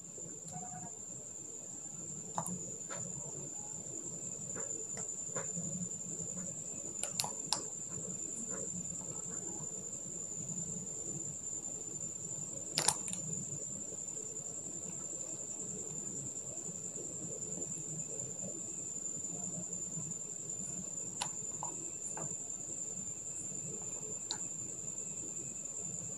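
A few faint, scattered clicks and taps as small stones and a plastic glue bottle are handled on cloth, over a steady high-pitched tone and low room noise.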